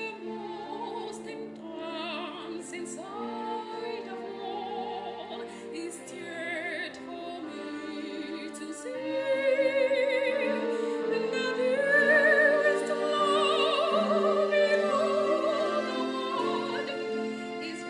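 A woman singing solo in a classical, operatic style, holding long notes with a wide vibrato and gliding between pitches. She grows louder about nine seconds in.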